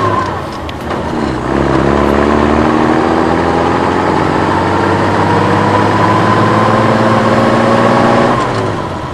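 Vehicle engine accelerating, its pitch rising steadily through one long pull, then cutting off suddenly.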